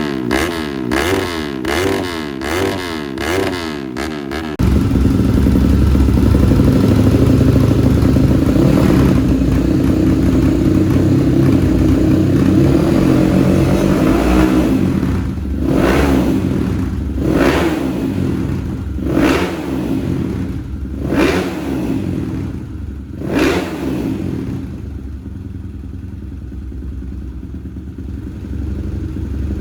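Four-stroke trail motorcycle engine running at a fast idle, then blipped five times, about two seconds apart, before settling to a quieter idle. A warbling, pulsing sound fills the first few seconds before the engine comes in.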